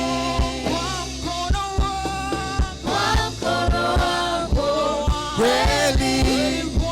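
Gospel praise music from a church worship band: voices singing a melody over bass and a steady drum beat.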